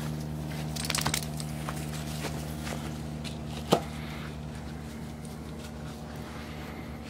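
Steady low hum with light rustling and clicks from handling, a small cluster about a second in and one sharp click a little under four seconds in.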